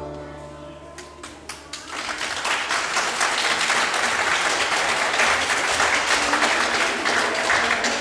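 Audience applauding as the dance music fades out: a few separate claps at first, then steady clapping from about two seconds in.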